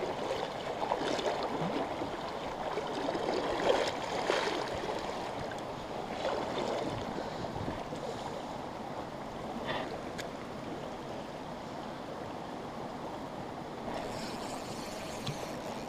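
Shallow stream water running and gurgling steadily over stones around a wading angler's legs.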